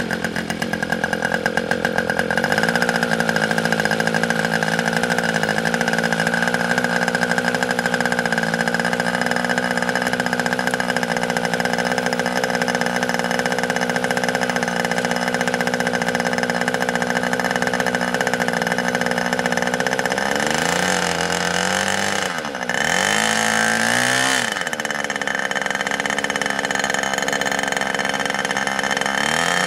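HP 61 two-stroke nitro glow engine running steadily on a test stand while warming up, set rich and four-stroking. About two-thirds of the way through its speed sags and picks back up twice.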